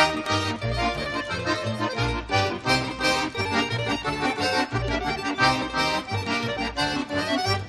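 Lively accordion music with a steady bouncing bass beat.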